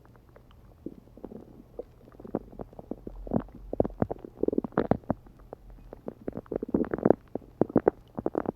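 Human stomach gurgling and bubbling with gas and hunger: a quick string of short pops and gurgles that starts sparse and grows louder and denser from about three seconds in. It is picked up close by a phone microphone pressed against the belly.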